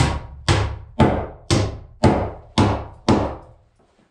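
Hammer driving nails into a rough-cut wooden floorboard: seven steady blows about two a second, each a sharp knock with a short ring, stopping a little after three seconds in.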